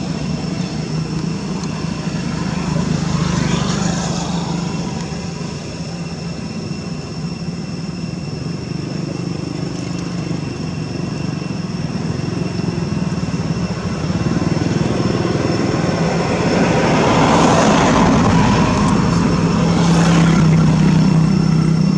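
Steady motor-engine drone with a low hum, growing louder as if something passes about three seconds in and again from about seventeen seconds on.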